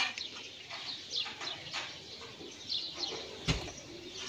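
Small birds chirping in the background, short high falling notes, over the rustle of a cloth bag being handled, with a single sharp knock about three and a half seconds in.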